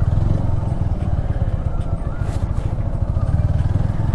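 Motorcycle engine running steadily at low revs, with a fast, even low pulsing.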